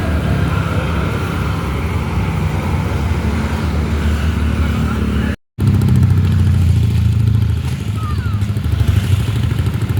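Steady low rumble of bus and traffic engines running on the road. The sound drops out completely for a moment just past halfway, then comes back louder.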